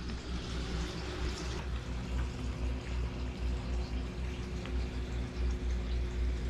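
Basset hound gnawing and chewing a bone at close range: wet chewing and mouthing noises in a steady rhythm, over a faint steady hum.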